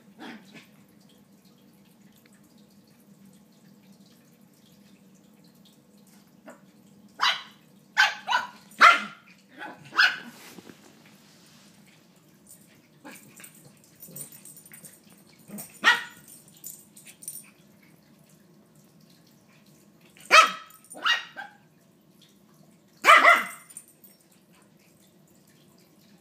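Small dogs, a chihuahua puppy among them, barking in short, sharp barks while play-fighting. There is a quick run of about five barks a quarter of the way in, then a single bark, a pair, and one more later, with quiet scuffling between.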